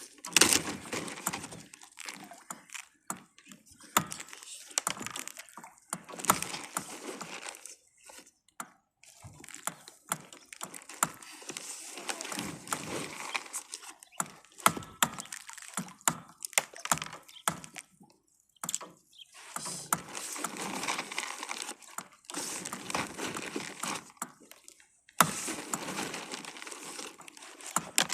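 Gear being handled aboard a kayak: irregular rustling with scattered sharp clicks and knocks, broken by short quiet gaps.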